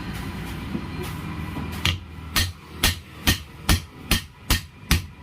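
Hammer striking metal in a steady rhythm, a little over two blows a second, starting about two seconds in after a low steady background noise: hammering the worn bearing out of a wet grinder's drum housing.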